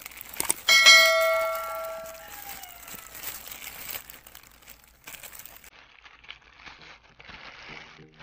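A notification-bell sound effect from a subscribe-button animation: a couple of clicks, then a bell ding about a second in that rings out over about a second and a half. After it, the crinkle and rustle of a plastic courier mailer bag being handled and opened.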